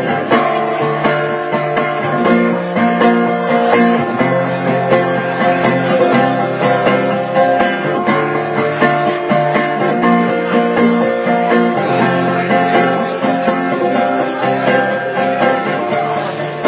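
Acoustic guitar strummed in a steady rhythm through an instrumental break, with no singing; the chords change every couple of seconds.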